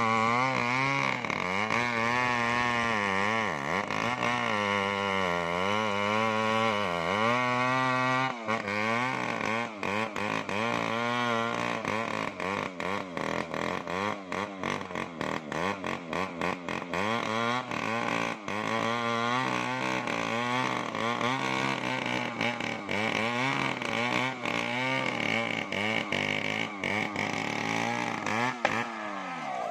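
Stihl MS070 two-stroke chainsaw running at high revs in a cut, its pitch repeatedly sagging under load and picking up again. The pitch drops sharply near the end as the throttle comes off.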